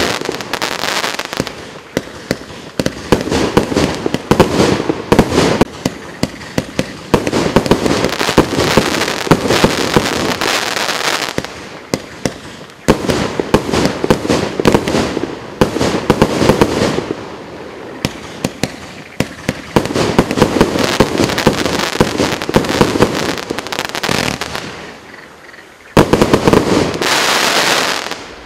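A 120-shot, 30 mm firework cake firing in rapid volleys: a dense run of launch thumps, bursts and many sharp pops, coming in several waves with short lulls between. A last loud flurry comes near the end, then the sound dies away.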